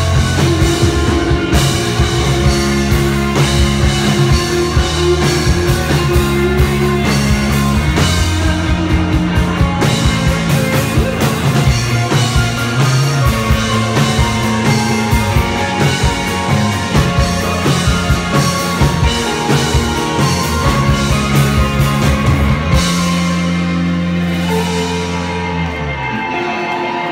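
Live rock band playing: drum kit, electric guitars and bass. Near the end the drums stop and a final held chord rings out and fades.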